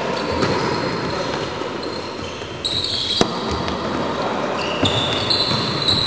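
Volleyball being struck during a rally on an indoor court: a few sharp smacks of the ball, the clearest about three seconds in, over a steady din of hall noise.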